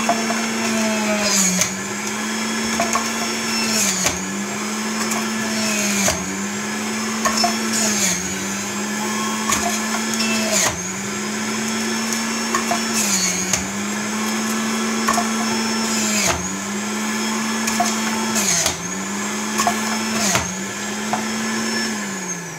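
Electric centrifugal juicer grating apples: the motor runs steadily and dips in pitch with a crunch each time an apple piece is pushed in, about every two seconds. Near the end it is switched off and winds down.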